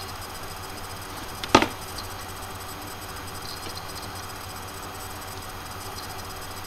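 Steady hiss with a faint low hum, broken by one sharp knock about one and a half seconds in.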